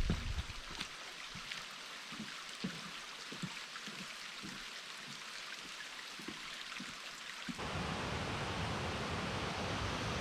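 Steady rushing of water from a small waterfall on a river, with faint soft thuds. About three quarters of the way through it changes suddenly to a fuller, deeper steady rush.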